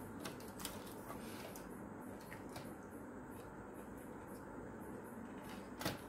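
Small parts being handled on a workbench: a few light clicks, then a sharper knock near the end as a circuit board is set down among the tools, over steady low background noise.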